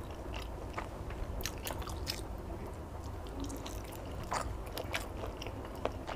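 A person chewing a mouthful of chicken satay close to the microphone, with irregular wet clicks and smacks from the mouth.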